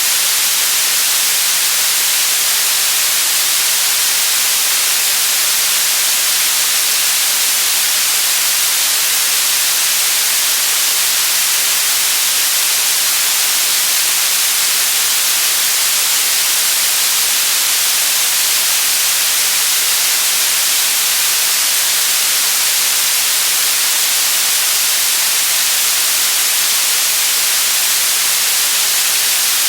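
Steady, unchanging white noise: a loud, even hiss, brightest in the upper range, with no change or break.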